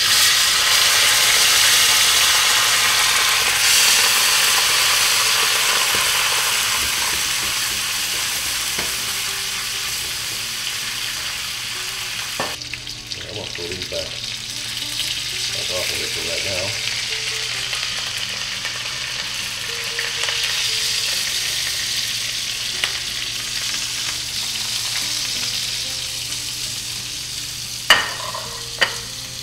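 Breaded chicken cutlets frying in olive oil and butter in a skillet, sizzling loudly as liquid is poured into the hot pan at the start, then easing off to a steadier sizzle while a spatula lifts the cutlets. A couple of sharp clacks near the end.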